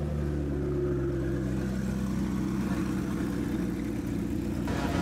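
Engines of a Liberty Walk widebody McLaren and the old motorcycle behind it, running steadily at low revs as they roll slowly past at close range. A burst of noise comes in near the end.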